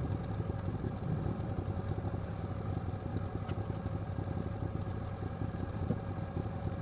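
Band sawmill's engine running steadily while the blade cuts a side slab off a small log.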